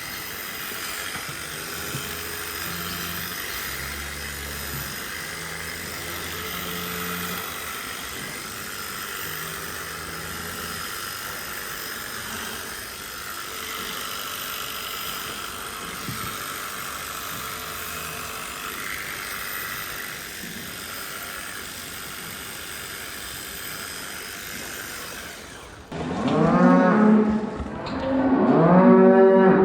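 Steady barn background noise, then near the end a cow moos loudly twice, each call about a second and a half long with a bending pitch.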